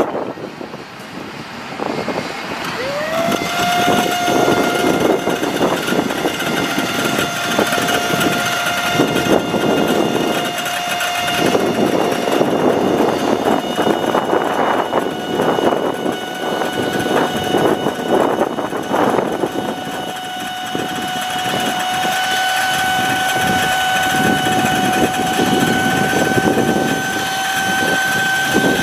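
A utility service truck's machinery running with a continuous mechanical rush. About three seconds in, a whine sweeps up in pitch and then holds steady, creeping slightly higher.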